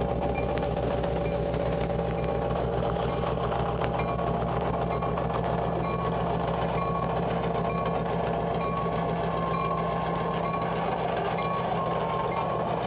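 An EMD GP30 diesel locomotive's 16-cylinder engine running steadily as the locomotive rolls slowly past, followed by freight cars. Short high-pitched tones recur every second or so over the low engine drone.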